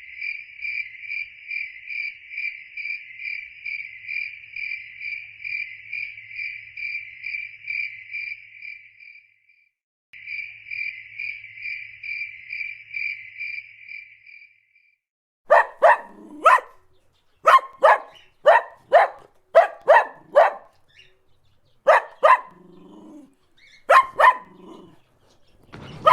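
An insect, tagged as a cricket, chirps in a steady high trill that pulses about three times a second, breaks off briefly and resumes for a few more seconds. A dog then barks repeatedly for the last ten seconds, in sharp single barks and pairs.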